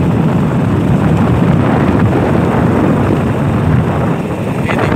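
Wind buffeting a phone's microphone: a loud, steady low rumble.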